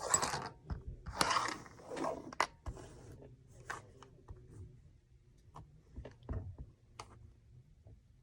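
An awl needle is scraped against a sharpener in a few short strokes during the first three seconds. Scattered light clicks and taps of handling follow.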